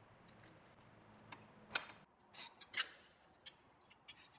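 Faint, scattered clicks and light taps of hands handling cut pieces of steel tube, over low room tone.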